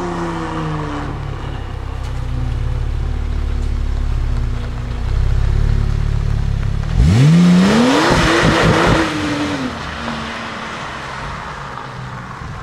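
Porsche flat-six engines: a straight-piped GT3 RS's revs falling away in the first second, then a low engine rumble. About seven seconds in, a Porsche 911 Turbo Cabriolet revs hard, its pitch climbing fast, then drops back with a burst of crackles and pops before settling to a quieter rumble.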